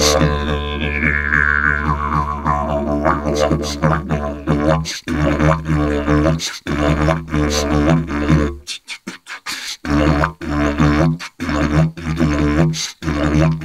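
A didgeridoo playing a low, steady drone pulsed into a rhythm, with an overtone sweeping up and down in the first couple of seconds. About two-thirds of the way through, the drone breaks off for about a second into a few short stabbed notes, then carries on.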